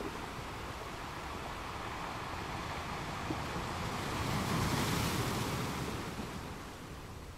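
A soft, even rushing noise that swells to a peak about five seconds in and then fades.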